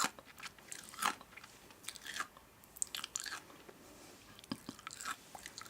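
A person biting and chewing crunchy food, with a series of crisp crunches at irregular intervals.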